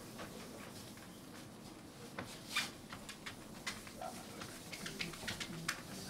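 Marker and eraser working on a whiteboard: scattered light taps and scrapes, with one louder swish about two and a half seconds in.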